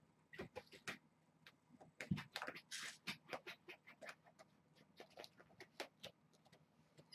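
Kittens at play: scattered light taps and scratches of paws and claws on blankets and carpet, with a soft thump about two seconds in and a brief rustle of fabric just before three seconds.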